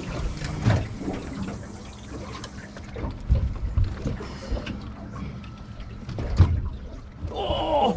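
Water slapping and sloshing against a small fishing boat's hull, with scattered knocks and thumps of gear and footing on the deck and a faint steady hum underneath. A voice calls out near the end.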